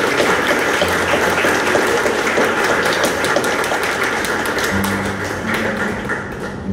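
Audience clapping, with music playing underneath; the clapping thins out near the end.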